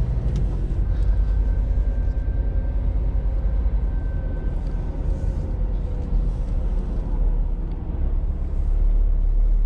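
Scania R450 truck heard from inside the cab while pulling away and driving slowly: a steady low rumble of its 13-litre straight-six diesel engine and the road, with a faint thin whine over it for a few seconds near the start.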